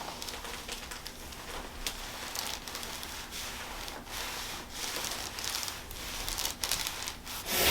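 Soft rustling and rubbing as hands, clothing and the patient shift against a chiropractic treatment table, with scattered light scratchy brushes and ticks, louder near the end.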